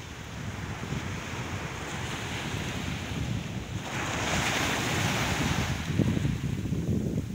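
Small waves breaking and washing up the sand, with wind buffeting the microphone as a steady low rumble. A wave rushes in about four seconds in, the loudest part, hissing for a couple of seconds before it fades.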